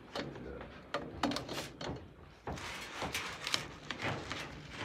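Wooden kite-string spools (chakhris) knocking and clattering as one is pulled from a metal shelf rack: a few sharp knocks in the first two seconds, then a stretch of rustling and scraping.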